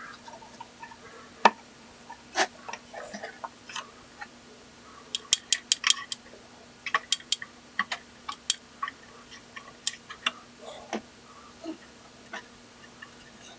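Scattered sharp clicks and ticks, clustered from the middle on, as rubber pads are pried off the metal feet of an iKier K1 laser engraver's frame. A faint steady hum sits underneath.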